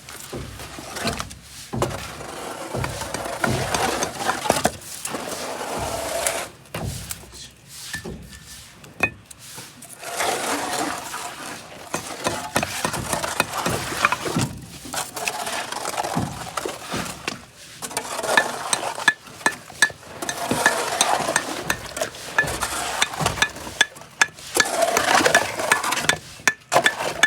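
Metal tools scraping and clinking in irregular stretches, with sharp knocks and clicks scattered through.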